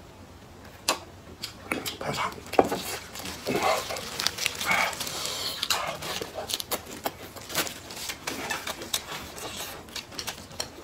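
Close-up eating sounds: crisp lettuce crunching and wet chewing with mouth smacks. It comes as many short, irregular clicks and crunches.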